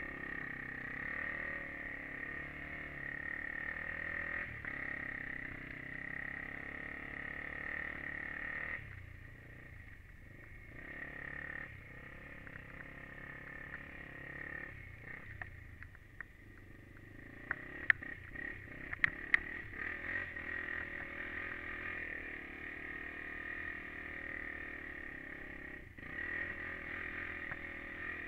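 Honda TRX400EX quad's single-cylinder four-stroke engine running as it is ridden, the engine note dropping back for a few seconds about a third of the way in and again around halfway. A few sharp clicks come just after halfway.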